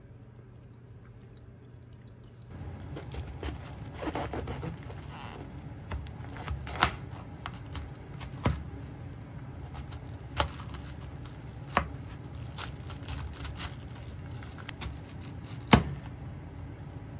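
Chef's knife slicing a head of cabbage on a plastic cutting board: crisp crunching cuts through the leaves, with a sharp knock of the blade hitting the board every second or two. The cutting starts about two and a half seconds in, after a faint low hum.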